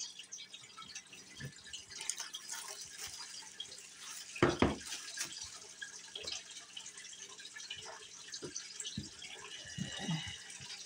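Faint handling noise of a small cardboard card-game box in gloved hands: scattered light clicks and rustles as it is turned over, with one louder thump about four and a half seconds in.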